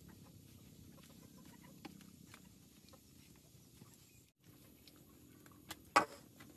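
Wood fire crackling under a cooking pot, with scattered light clicks and scrapes from a wooden paddle stirring the food, then a single sharp clank about six seconds in as a metal pot is handled.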